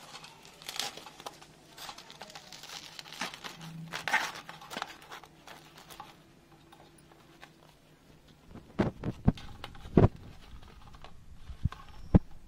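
Crisp fried aloo kachori being cut and broken open with a steel utensil on a steel plate: scattered crackles and rustles of the crust, then several sharp knocks in the second half.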